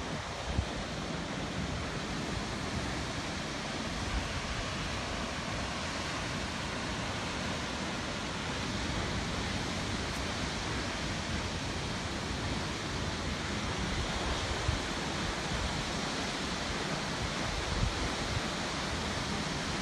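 Steady roar of rushing water, with wind buffeting the microphone in uneven low rumbles.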